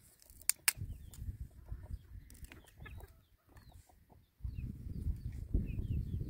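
Low wind rumble on the microphone in the open, with two sharp clicks about half a second in and short, faint high chirps of birds scattered throughout.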